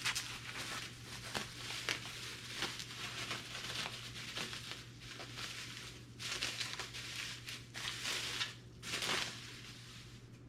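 Mailer packaging being handled and torn open by hand: irregular crinkling and tearing rustles, with a louder burst about nine seconds in.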